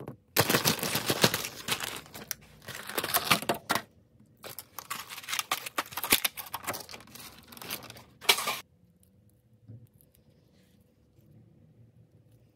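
Packaging being torn open and crinkled by hand, in two long stretches and a short third one about eight seconds in.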